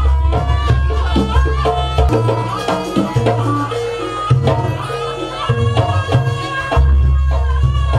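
Jaranan dance music: hand-drum patterns under a stepping, held melody line, with a deep low drone that drops out about two seconds in and comes back near the end.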